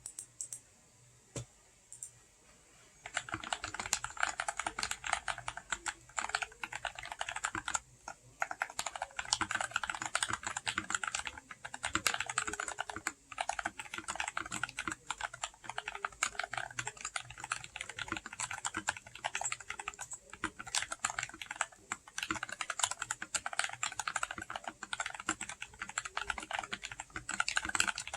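Typing on an FL Esports MK870 mechanical keyboard with factory-lubed Jwick Ult Black linear switches, stock stabilizers and Leopold SS2 keycaps: fast, continuous key clacks. A few single keystrokes come first, and steady typing starts about three seconds in.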